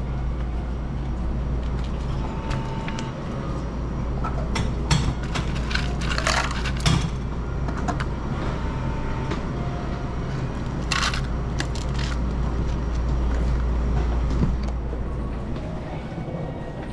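A moving vehicle's steady low rumble, with scattered clicks and rattles and a few brief squeals.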